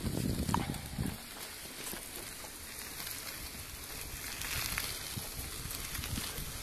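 Mountain-bike tyres rolling over a sandy dirt track, a steady crackling hiss, with low rumbling buffets and a few knocks in the first second.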